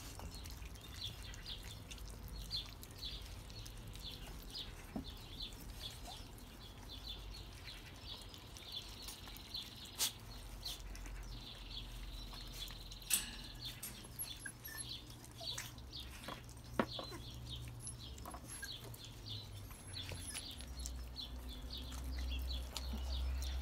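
Five-week-old puppies eating raw meat, with scattered sharp chewing and smacking clicks. High, quick chirping runs throughout.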